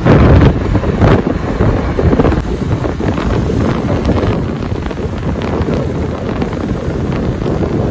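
Wind buffeting the microphone while riding a Honda CD 70 motorcycle at speed, a loud, rough rushing with the strongest gusts in the first second or so. The bike's engine and road noise lie underneath.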